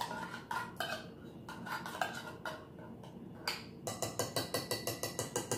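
A metal spoon scraping and knocking inside an opened tin can as the leftover contents are scooped out into a glass jar. There are a few separate clinks, then a quick even run of about seven taps a second near the end.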